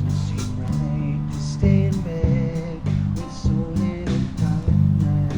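Band playing an instrumental stretch of a song: guitar over a bass guitar and drums, with regular drum strikes.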